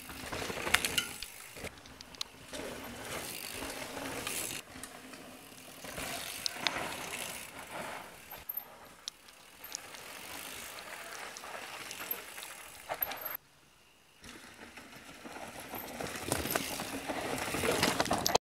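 Mountain bikes riding a dirt trail: tyres rolling and scrubbing over dirt, the rear freehub ratcheting as the riders coast, and rattles and sharp knocks from the bikes, with loud hits on landings. The sound changes abruptly at edit cuts and drops almost out for about a second two-thirds of the way through.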